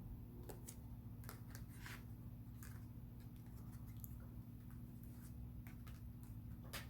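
Tarot cards being shuffled and handled: faint, scattered soft flicks and slides of the cards, over a steady low hum.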